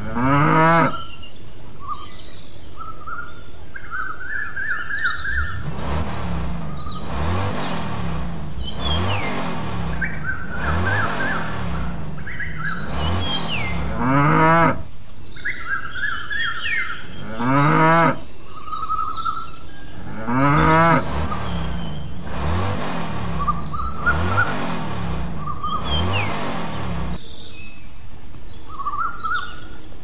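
Cattle mooing: four long, pitch-bending calls, one right at the start and three more about 14, 18 and 21 seconds in. Bird chirps run throughout as a farmyard soundscape.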